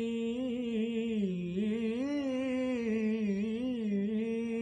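A solo voice singing a naat unaccompanied, holding one long vowel without words. The pitch wavers up and down in a melismatic run through the middle, then settles on a steady held note near the end.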